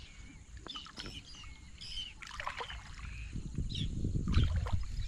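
Shallow paddy-field water splashing and sloshing under wading legs, louder in the second half, with birds chirping.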